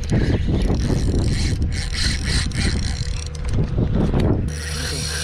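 Penn Spinfisher VI 4500 spinning reel being cranked against a hooked fish, giving quick irregular mechanical clicking, under heavy wind rumble on the microphone. The sound changes abruptly about four and a half seconds in to a steadier hum.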